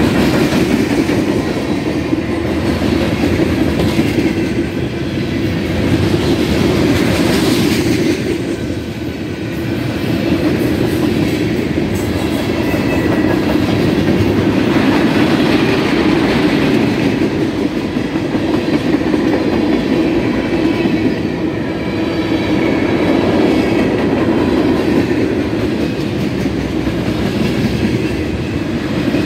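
A loaded mixed freight train's cars rolling past at close range: steady, loud rumble of steel wheels on the rails as boxcars, covered hoppers and centerbeam lumber flatcars go by.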